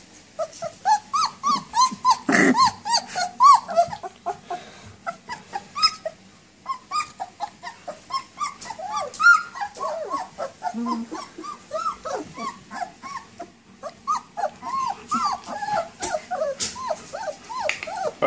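A litter of young puppies crying together: many short, high whines and yelps that rise and fall, several a second and overlapping.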